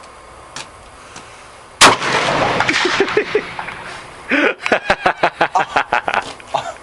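A single shot from a .45-70 buffalo rifle about two seconds in, its report trailing off over the next two seconds. A man's laughter follows near the end, in quick short bursts.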